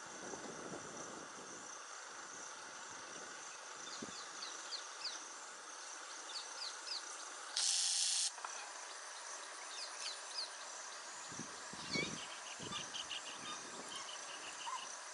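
Quiet countryside ambience: a steady high insect chirring under scattered short bird chirps. About eight seconds in, a brief loud hiss lasts under a second, and a few soft low thuds come near the end.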